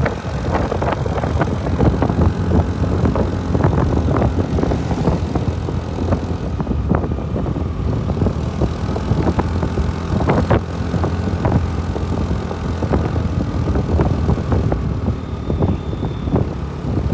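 A vehicle running: a steady low engine and road rumble with frequent short crackles over it.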